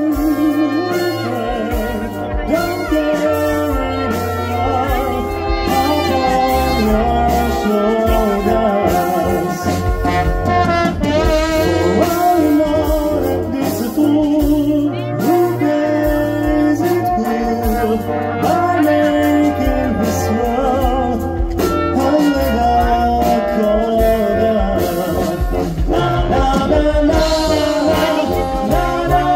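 Brass ensemble of trumpets and trombones playing live over a drum kit, with a steady low bass line and beat.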